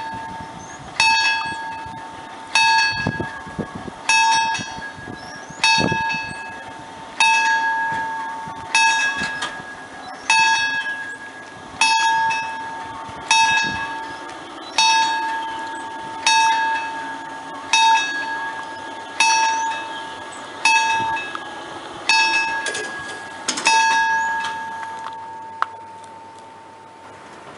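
Level crossing warning bell striking slowly, about once every second and a half, each ring dying away before the next. It signals an approaching train while the barriers come down, and falls silent about 24 seconds in once they are closed.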